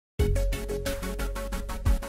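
Electronic background music with a quick, steady beat and held synth notes, starting abruptly just after the opening, with a heavy bass hit near the end.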